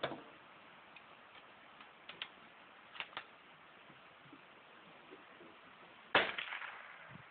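Savage Mark II bolt-action .22 LR rifle: a crack at the very start, a few short metallic clicks of the bolt being worked around two and three seconds in, then a sharp shot just after six seconds that rings out for about a second.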